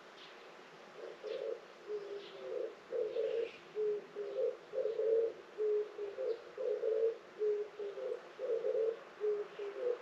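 A dove cooing a low, repeated phrase, starting about a second in and going on in a steady rhythm. Faint chirps of small birds sound above it.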